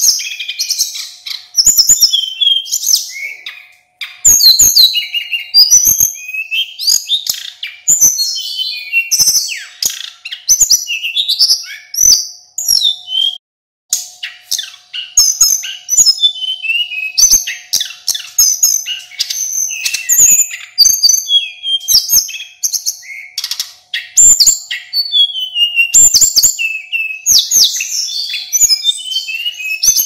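Male hill blue flycatcher (sulingan/tledekan gunung) singing nonstop: a rapid, varied run of sharp chirps, trills and whistled phrases. It breaks off briefly once, about halfway through.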